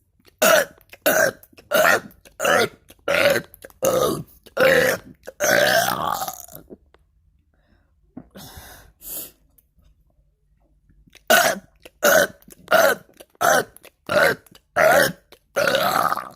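A person burping in quick succession: two runs of short, loud burps, about three every two seconds. The last burp of each run is longer, and there is a pause of about four seconds between the runs.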